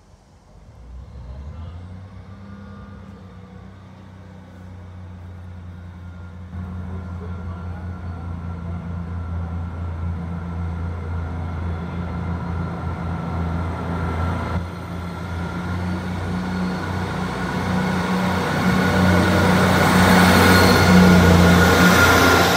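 Class 158 diesel multiple unit arriving at a platform, its underfloor diesel engines giving a steady low drone that grows louder as the train draws near. Near the end, as it comes alongside, a rising hiss joins the drone and the sound is at its loudest.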